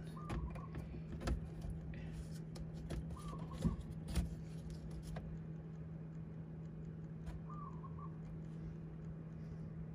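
A few sharp plastic clicks and knocks in the first half from handling the electrical connector of a transmission input turbine shaft speed sensor, over a steady low hum. A short high whistled chirp comes three times, a few seconds apart.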